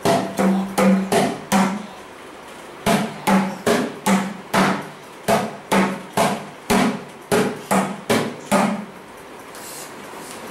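Mridangam struck in a slow, even series of strokes, about two to three a second, many ringing with the drum's tuned pitch. The strokes break off briefly about two seconds in and stop near the end.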